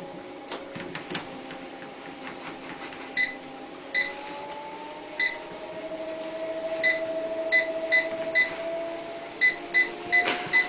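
About a dozen short electronic beeps at irregular intervals, coming closer together near the end, over a faint steady hum whose pitch drifts slowly. A few light clicks come in the first second or so.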